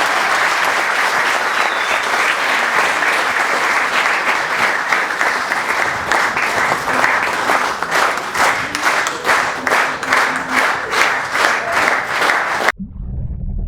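Audience applauding. In the second half the clapping falls into a rhythmic unison clap of about three to four claps a second. It cuts off abruptly about a second before the end and gives way to a low rumble.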